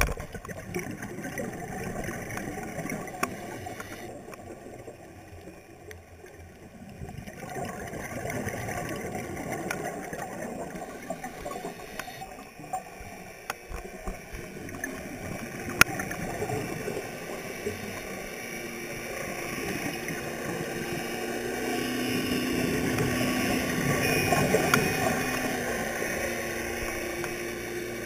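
Underwater sound of a scuba dive: surges of bubbling from a diver's regulator exhalations with scattered sharp clicks. From about two-thirds of the way in, a boat's engine and propeller hum rises, loudest a few seconds before the end, then eases.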